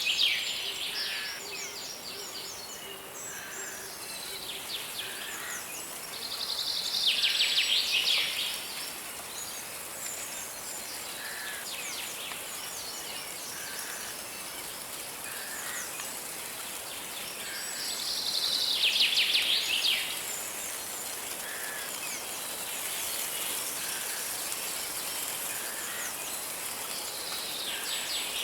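Forest songbirds singing: one bird repeats a loud, fast trilled song phrase about every eleven or twelve seconds, with softer chirps and short notes from other birds in between, over a steady high hiss.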